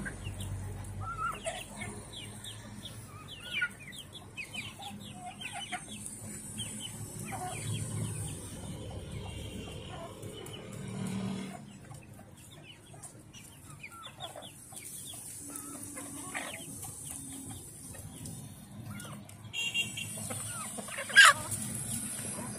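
A flock of domestic chickens, hens and roosters, clucking and giving short calls while they feed, with one brief, sharp, loud sound near the end.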